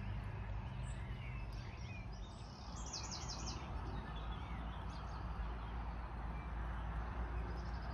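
Songbirds calling, with a quick run of short high chirps about three seconds in, over a steady low background rumble.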